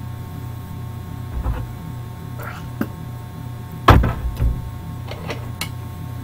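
A steady low electrical hum, with a scatter of short knocks and clicks about a second apart, the loudest about four seconds in.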